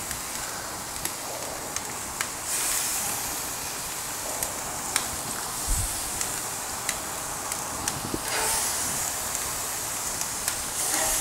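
Raw seasoned chicken wings sizzling as they are laid on the very hot grates of a gas grill: a steady hiss that swells twice, with sharp clicks scattered through it.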